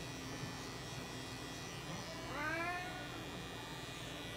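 A long-haired cat gives one drawn-out meow about two seconds in, rising then falling in pitch, over the steady hum of electric pet clippers working through its fur.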